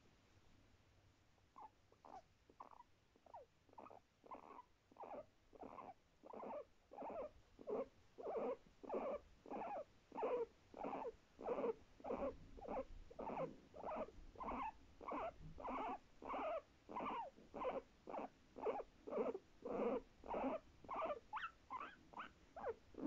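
Guinea pig calling in a long, regular series of short calls, about two a second, starting softly and growing louder after a few seconds.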